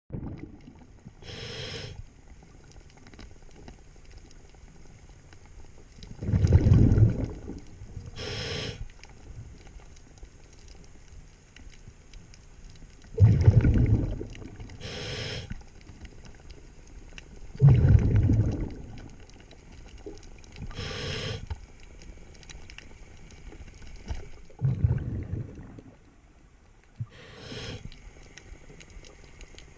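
Scuba diver breathing underwater through a regulator: a short hiss with each inhale and a louder, low bubbling rumble with each exhale, about five slow breaths.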